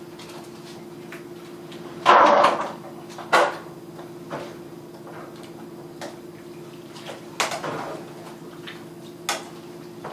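Pan and serving utensils clattering as thin-sliced roast beef is put into a pan of hot au jus: one loud clatter about two seconds in, a sharp knock soon after, then a few lighter knocks, over a steady low hum.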